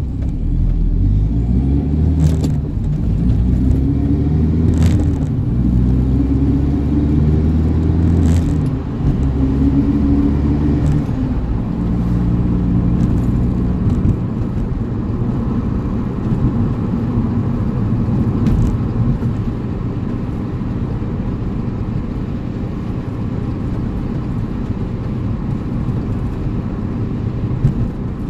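Audi TT's engine running on the move, its pitch rising and falling repeatedly in the first half and then settling into a steadier drone with road noise, with a few sharp clicks. This is the car coming off the throttle, when it makes the deceleration noise its owner calls weird.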